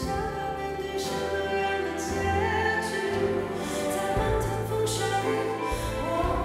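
A woman singing into a microphone over instrumental accompaniment, holding long notes that glide between pitches.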